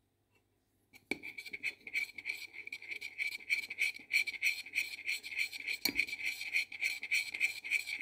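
A metal spoon stirring fast in a glass bowl, scraping the bottom and sides in quick even strokes, about five a second, from about a second in, with one harder knock near six seconds. It is stirring a foaming honey-cake batter of melted butter, sugar, honey, eggs and baking soda on the heat, whose sound turns softer and crumbly as the soda makes the mass rise.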